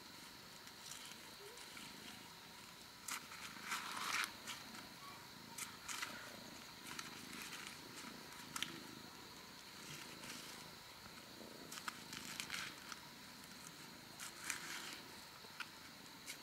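A cat purring softly, with scattered clicks and rustles.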